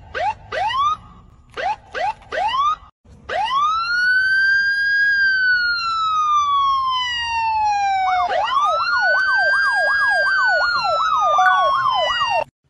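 Police-style electronic siren: two quick runs of short rising whoops, then a long wail that climbs and slowly falls, then a fast up-and-down yelp that cuts off suddenly near the end.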